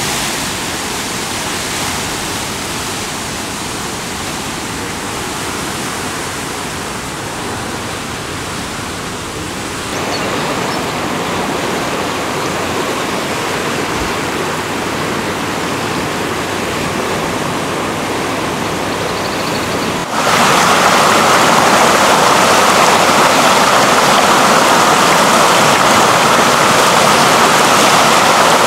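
Floodwater rushing steadily. The sound changes abruptly about ten seconds in and again about twenty seconds in, and is loudest over the last stretch.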